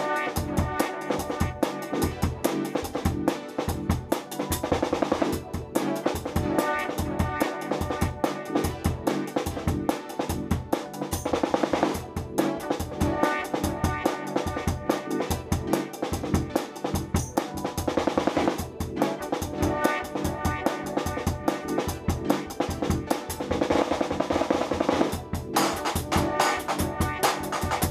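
A drum kit played in a steady rock groove: bass drum, snare with rimshots and cymbals, with a louder cymbal-washed accent roughly every six seconds.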